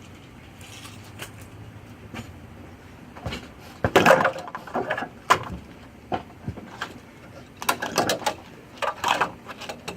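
Handling noise as parts are picked up and sorted: scattered clicks and knocks, with bursts of crackly rustling and clatter about four seconds in and again near the end.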